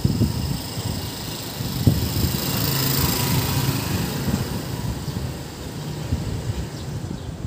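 A motor tricycle's small motorcycle engine passing close by, getting louder to a peak about three seconds in and then fading away.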